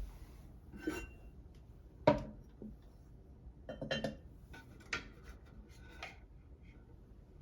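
About five separate sharp clinks and knocks of hard objects being handled, the loudest about two seconds in.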